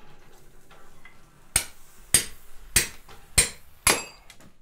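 Hand hammer striking a steel drift to open a hot-punched hole in a red-hot bar on the anvil. Five sharp metallic blows with a bright ring, about half a second apart, starting about one and a half seconds in.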